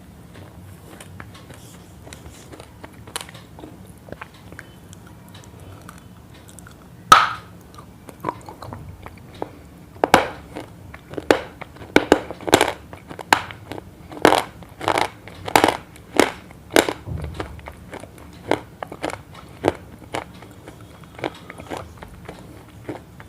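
Close-up crisp crunching: a loud crunch about seven seconds in, then a run of sharp crunches about two a second, thinning to fainter ones near the end.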